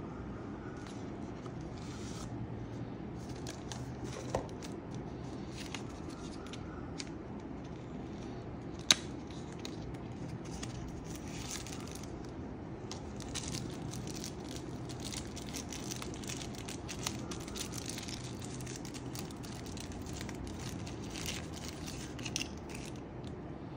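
Packaging and small parts being handled: intermittent rustling and crinkling with light clicks, and one sharp click about nine seconds in, over a steady low hum.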